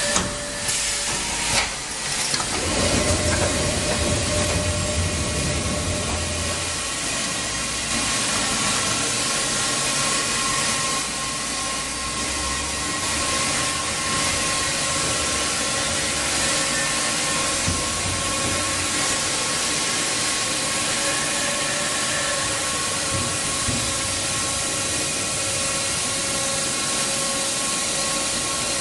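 CHIRON gantry milling machine running, its spindle head swivelling and travelling: a steady hiss with a faint constant whine. A few sharp clicks come in the first two seconds, and a low hum follows for a few seconds.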